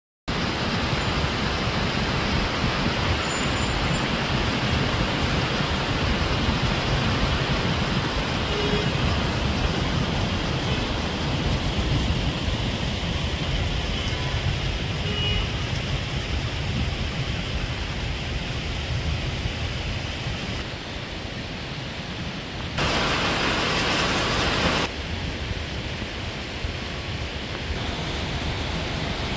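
Steady rush of rain and swollen, fast-flowing floodwater in an urban stream, with a low rumble underneath and a brief louder hiss about three-quarters of the way through.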